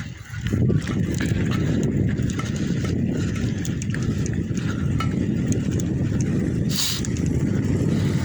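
Strong wind buffeting the microphone on a moving bicycle: a continuous low rumble that drops briefly just after the start, with a short hiss about seven seconds in.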